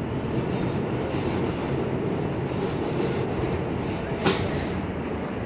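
Interior noise of a moving R160 New York City subway car: a steady rumble of the car running on the rails, with a single sharp clack about four seconds in.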